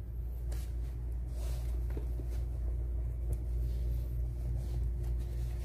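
A steady low hum with a faint tone above it, and a few faint scattered clicks from a cat crunching dry kibble at its bowl.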